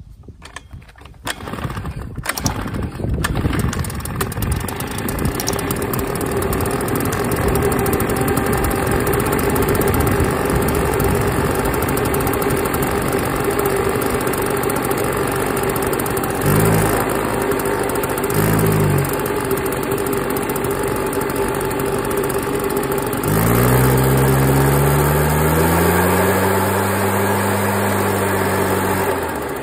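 A Husqvarna 150BT backpack leaf blower's freshly rebuilt two-stroke engine, on its first run after a new cylinder and gasket, starts on the recoil pull and then runs steadily. Two short throttle blips come past the middle, and a longer rev-up near the end is held for a few seconds before it drops back.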